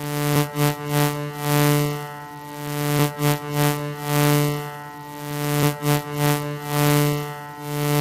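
Background music: a held chord that swells and fades in a repeating rhythm.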